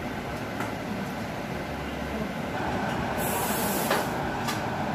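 A few light clicks of metal tongs against a metal baking sheet as rolls are lifted off, over a steady kitchen rumble. A short high hiss comes a little past three seconds, just before the loudest click.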